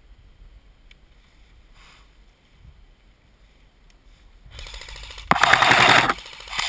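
Rapid bursts of fire from an electric airsoft gun close by, a fast run of clicks. A first burst starts about four and a half seconds in and grows loud with a sudden jump. A shorter second burst comes near the end.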